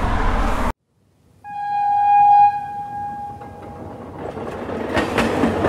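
Street noise cuts off abruptly. About a second later a train horn sounds one steady note, loudest for about a second, then fades away. A low rumble builds near the end.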